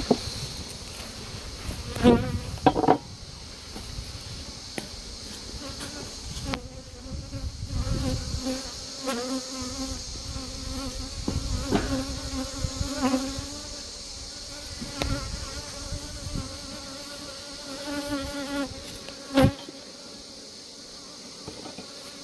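Honeybees buzzing around the hives, a hum that wavers in pitch and level. A few sharp knocks cut through it: two close together about two seconds in and one near the end.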